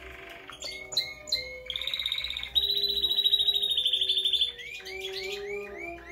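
Spanish timbrado canary singing: brief trills, then a long, fast, even rolling trill, then a run of short repeated rising notes near the end.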